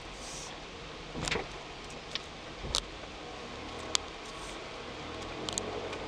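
Van heard from inside its cabin, running slowly with a steady low rumble as it drives onto a river car ferry's deck. A few sharp knocks and rattles come about a second apart through it.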